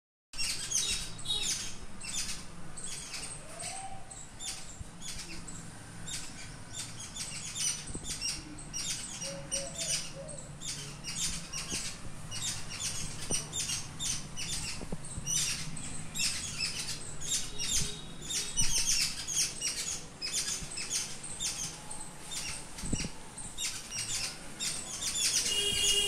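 A flock of small birds chirping rapidly and continuously in a tree, many short high-pitched calls overlapping.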